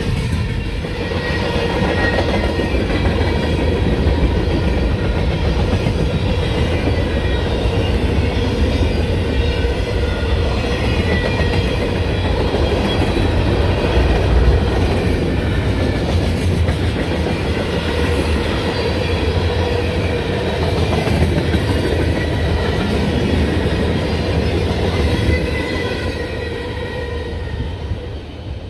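Freight cars of a CSX mixed manifest train rolling past on the rails, a steady heavy rumble with faint ringing tones from the wheels, fading near the end.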